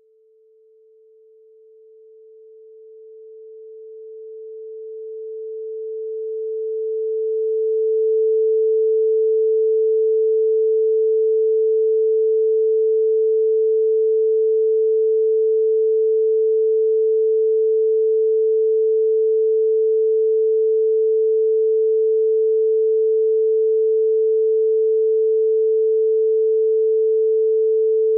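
Telephone beep tone: one pure, steady electronic tone at a single mid pitch. It fades in over the first eight seconds or so, then holds unbroken at full level.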